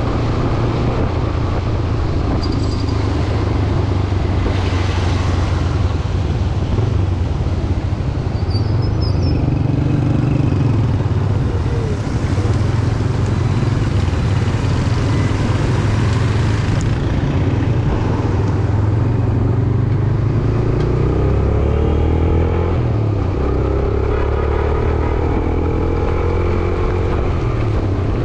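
Motorcycle engine running under way, heard from the rider's position with road and wind noise over it. In the second half the engine note rises several times as it accelerates.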